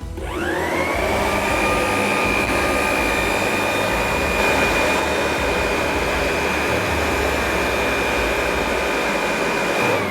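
Leaf blower switched on: its fan whine climbs quickly to a high steady pitch over a loud rush of air. It runs at full speed, then starts to wind down in pitch at the very end.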